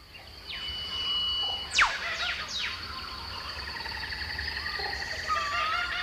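Rainforest birds calling: several fast whistles that sweep steeply down in pitch in the first few seconds, later a warbling call, over a steady high-pitched whine.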